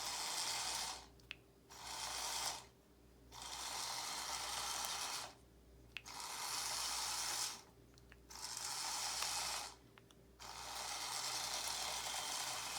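Small geared motors of a remote-controlled omni-wheel robot car whirring as it drives in bursts of one to two seconds with short pauses between, the last run longer; a couple of small clicks fall in the pauses.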